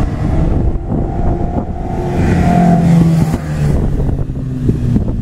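A car on a race circuit running at speed down the straight, its engine note growing louder as it approaches and passes close by about two to three seconds in, then easing as it moves away.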